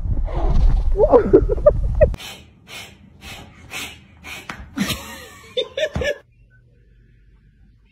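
Wind rumbling on the microphone with short high cries, cut off abruptly about two seconds in, then a run of breathy laughter in bursts about half a second apart, ending in a few short voiced sounds.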